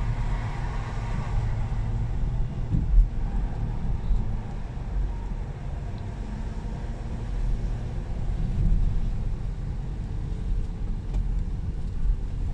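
Inside the cabin of a Toyota Vellfire with the 3.5-litre V6, driving along: a steady low rumble of engine and road noise, with one thump about three seconds in.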